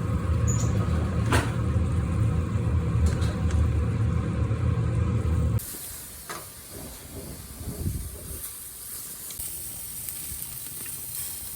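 A loud low rumble that cuts off suddenly about five and a half seconds in. It is followed by a steady hiss like food sizzling in a pan, which grows stronger near the end.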